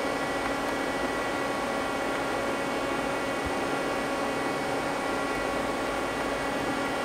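Steady machine hum and hiss with several fixed tones, from a Mazak CNC lathe standing powered up at idle.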